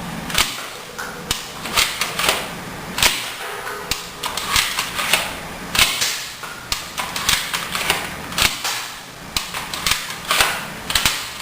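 A Nerf N-Strike plastic toy blaster being worked: a run of sharp plastic clicks and snaps, several a second, from its priming and air-pressure mechanism.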